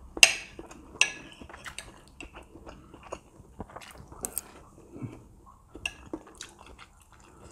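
Metal knife and fork clinking and scraping on a ceramic plate while cutting food, with a sharp clink just after the start and another about a second in, then lighter taps and scrapes mixed with chewing.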